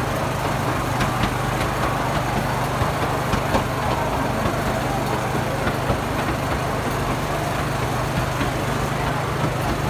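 Ride train running steadily along its route, a low even engine hum with a few light clicks.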